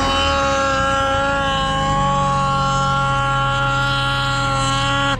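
Ski-Doo snowmobile's two-stroke engine running at steady revs, a constant even-pitched drone that holds without change.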